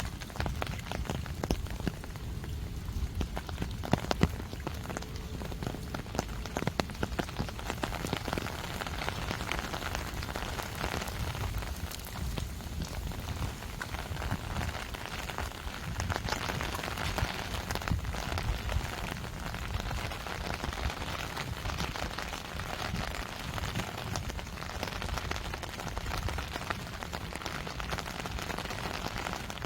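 Steady rainfall, a continuous hiss with many separate drop ticks close by, a few of them sharper and louder about four seconds in.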